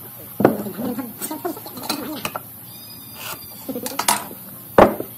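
Scattered knocks and clinks of steel squares and heavy wooden beams being handled and set down on a workbench, with a sharp knock near the end.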